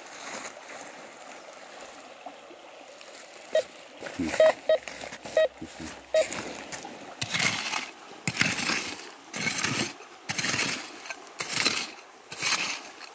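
A hand tool digging into gravelly soil, with scraping strokes about once a second through the second half. They come after a few short beeps from the metal detector over the spot.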